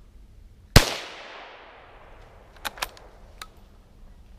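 A single shot from a Savage .17 HMR rifle, a sharp crack with a long echo fading through the woods over about a second, followed by a few light clicks.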